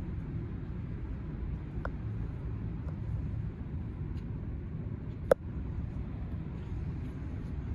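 Steady low background rumble of a large indoor hall, with a single sharp click about five seconds in.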